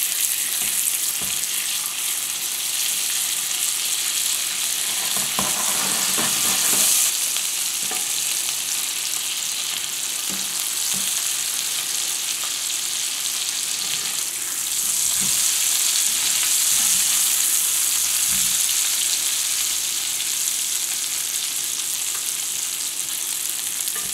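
Boiled potato chunks sizzling steadily in hot oil and foaming butter in a frying pan, with a few soft knocks and scrapes as a slotted spatula turns them.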